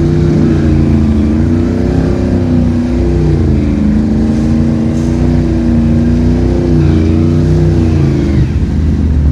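ATV engine running at low, uneven revs while the quad creeps through marsh grass; its pitch wavers up and down and dips about eight seconds in.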